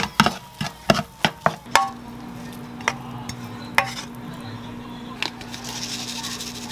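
Wooden spatula stirring egg fried rice in a nonstick wok, knocking against the pan in a quick run of taps. Then, over a steady low hum, a few taps as the rice is scraped from the wok into a ceramic pot, and a brief grinding hiss of sesame seeds being ground over it.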